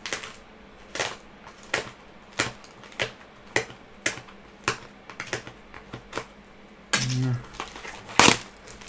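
Stiff cardboard mailing envelope being torn open by hand: a run of short, sharp rips and cracks about every half second, with a louder rip near the end.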